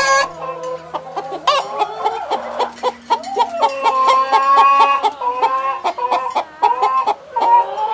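Chickens clucking: a flock of hens and young chickens giving many short, overlapping calls.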